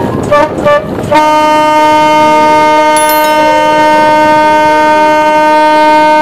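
Loud boat horn: two short toots, then from about a second in one long, steady blast.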